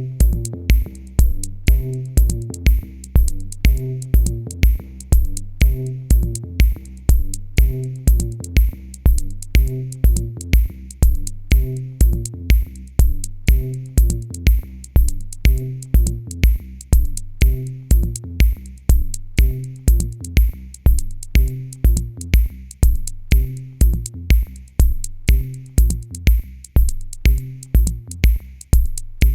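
Background music with a steady electronic beat: a low kick about twice a second with sharp clicks between.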